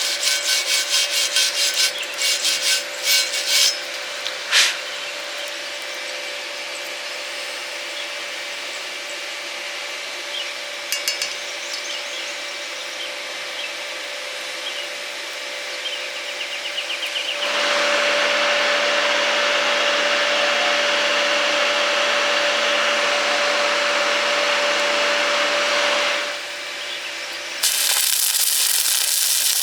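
Metalworking tool noise: a quick run of sharp taps in the first few seconds, then a loud, steady grinding noise with a hum in it from about 17 to 26 seconds. Near the end a bright, hissing crackle starts, of the kind a stick-welding arc makes.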